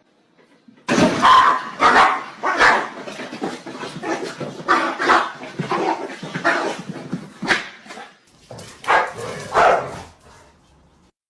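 A dog barking over and over, starting about a second in, with short pauses between barks, and stopping shortly before the end.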